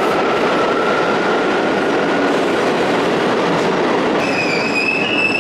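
New York City subway train moving along the platform: a loud steady running noise of the cars with a faint whine rising slowly in pitch, then a high metallic squeal from the wheels starting about four seconds in.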